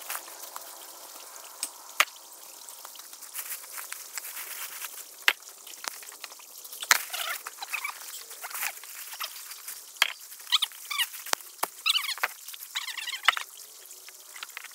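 Frogs calling in short, rapidly pulsed trills in the second half, over a faint trickle of creek water through the culvert, with scattered sharp clicks and knocks.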